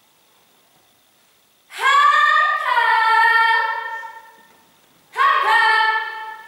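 A woman's high voice in two long, loud drawn-out phrases, almost sung: the first lasts about two and a half seconds, the second begins about five seconds in and is shorter.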